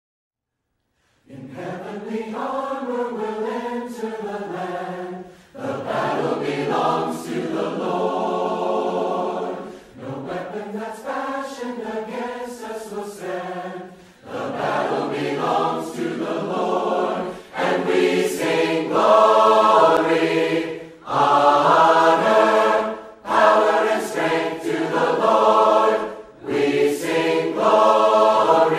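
Choir singing as intro music, in sustained phrases of a few seconds each with short breaths between, starting about a second in.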